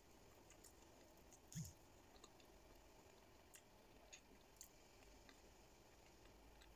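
Faint chewing of a fried spring roll (turon), with scattered soft mouth clicks and one slightly louder smack about a second and a half in.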